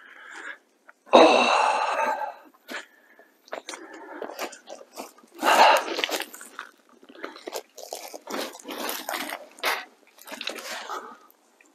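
Footsteps crunching and scuffing on loose rock and gravelly dirt, in irregular bursts.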